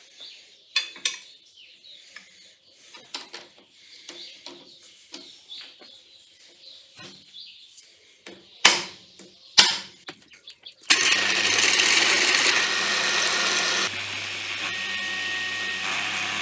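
Small handling clicks and two sharp knocks, then about eleven seconds in an electric drill starts and runs steadily, drilling the 5 mm holes to be tapped for the fold-up table arms. A few seconds after starting, its sound drops somewhat in level and stays steady.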